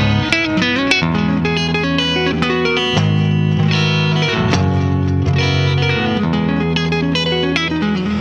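Guitar music: quick plucked notes over held low notes that change about once a second.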